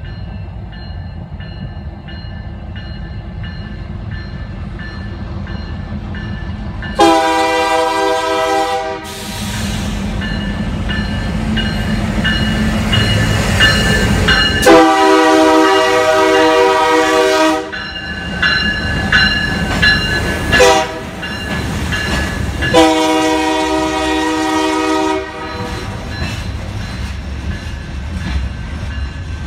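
Union Pacific diesel freight locomotive rumbling closer and passing, sounding its multi-note air horn in two long blasts, a short one and a final long one, the grade-crossing signal. The freight cars then roll by with a steady rumble.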